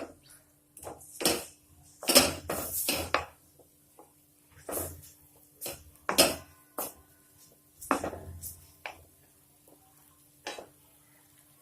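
Spatula stirring grated ginger frying in ghee in a kadhai, scraping and clinking against the pan in irregular strokes a second or two apart, some in quick clusters.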